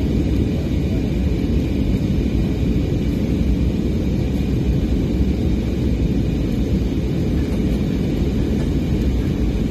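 Steady low rumble of an airliner cabin in flight, engine and airflow noise with no distinct knocks.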